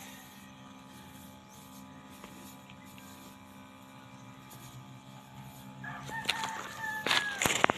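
A rooster crowing once, starting about six seconds in, over a faint steady low hum. Loud close crackling and clicks follow near the end.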